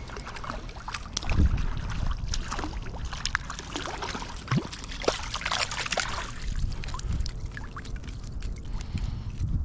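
Water splashing and sloshing as a hooked brown trout thrashes while being landed, with many scattered sharp clicks and a low rumble underneath.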